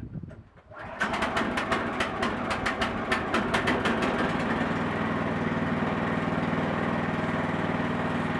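Wood-Mizer portable sawmill's engine starting up about a second in, running with rapid, uneven knocking for the first few seconds before settling into a steady run.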